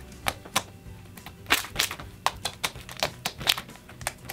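Thick slime made from Elmer's school glue and borax activator, stretched and squeezed by hand and giving off irregular sharp clicks and pops, several a second.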